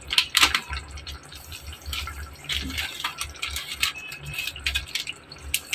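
Thick tomato-onion masala simmering in oil in a pot, with irregular pops and crackles from its bubbling surface, over a low steady hum.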